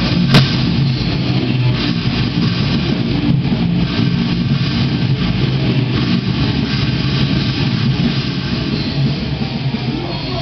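Heavy metal band jamming: distorted electric guitar playing sustained low notes, with a sharp crash about half a second in.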